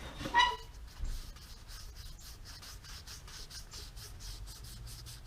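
A cloth rubbing shine juice (boiled linseed oil, denatured alcohol and shellac) into a turned cherry bowl: quick, even rubbing strokes, about five a second, after a short squeak near the start.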